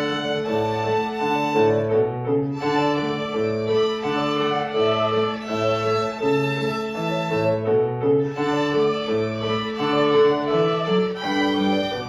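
A junior violin ensemble playing a piece together, the violins holding sustained notes over a bass line that moves in a steady beat.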